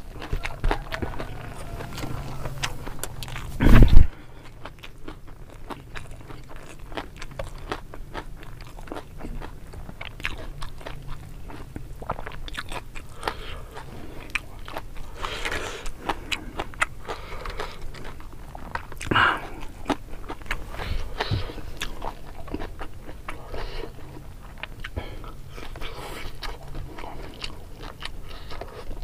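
Close-miked chewing, smacking and small crunches of a person eating fried fish and rice with sambal by hand, with many soft clicks and crackles. A single loud thump about four seconds in.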